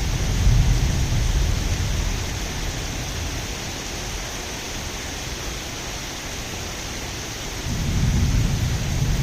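Steady rain with rolling thunder: a low rumble at the start fades away, and another roll of thunder swells up near the end.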